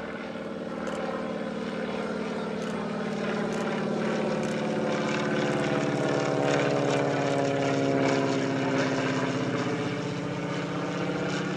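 Propeller airplane flying past, its engine drone swelling to its loudest about seven or eight seconds in, the pitch bending as it passes.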